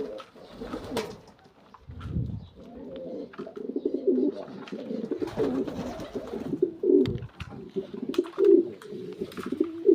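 Domestic pigeons cooing over and over in low, rolling phrases, with a few faint clicks and a short low thud about two seconds in.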